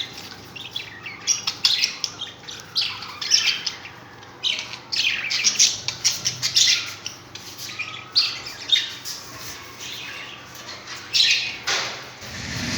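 A flock of caged budgerigars chirping and squawking, many short, sharp calls overlapping irregularly. A low rumble starts near the end.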